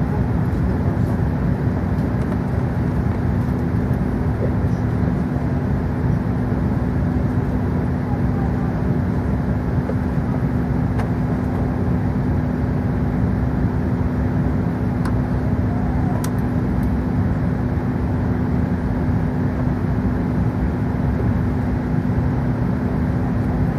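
Steady cabin noise inside an Airbus A380 while it taxis: a low rumble from its Rolls-Royce Trent 900 engines at taxi power, with one constant hum and a few faint clicks.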